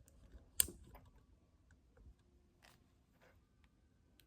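A sharp plastic click about half a second in, then a few faint clicks and rustles, from handling a mini cordless chainsaw whose motor is not running.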